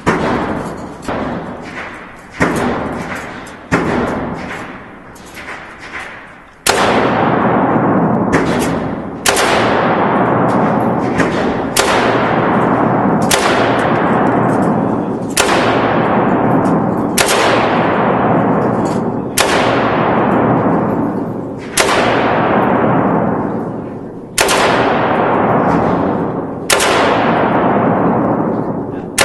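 AK-47 rifle (7.62×39 mm) fired as single shots, with a long ringing echo after each one in an indoor shooting range. A few quieter shots come in the first several seconds. From about seven seconds in, loud shots follow roughly every two seconds.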